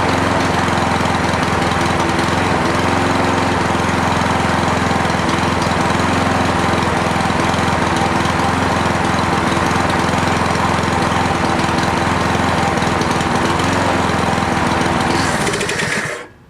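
Cub Cadet lawn mower's 173cc OHV single-cylinder engine running steadily on its newly fitted carburetor, then shut off near the end, its sound dying away quickly.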